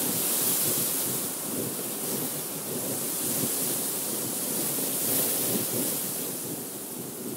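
Wind blowing through a field of ripe wheat: dry stalks and heads rustling in a steady rushing hiss that swells and eases with the gusts, with wind buffeting the microphone.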